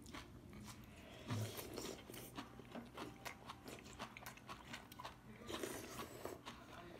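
Faint eating sounds: someone chewing food close to the microphone, with light clicks of chopsticks against dishes and two louder stretches of chewing.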